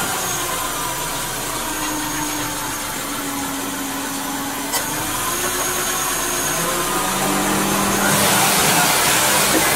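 Subaru Baja's flat-four engine idling with the A/C running during the refrigerant recharge, a steady engine-bay noise. A single click comes about five seconds in, and the noise gets a little louder about eight seconds in.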